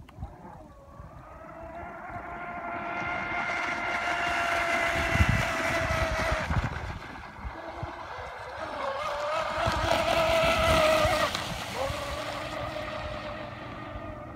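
RC Pro Boat Miss Geico V3 racing catamaran's brushless electric motor running at speed on a 4S battery. It makes a high whine over the hiss of the hull and spray, swelling louder twice as the boat comes near and fading toward the end.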